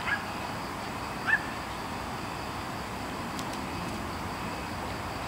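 A dog barking twice, short barks just after the start and about a second in, the second louder, over a steady background hiss.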